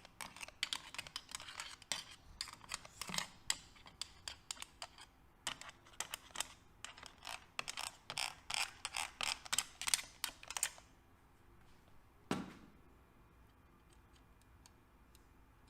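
A quick, irregular run of small clicks and ticks from hand work on the Honda CBX engine's crankcase while it is being oiled, stopping after about eleven seconds. A single heavier knock follows a little later, then only faint ticks.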